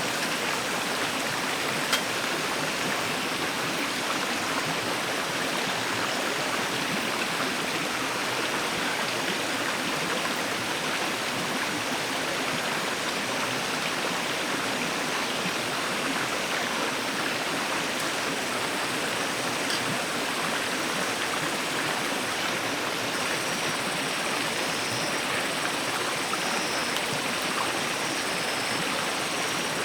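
Valley stream water running steadily, an even rushing sound with no let-up. There is a faint tick about two seconds in.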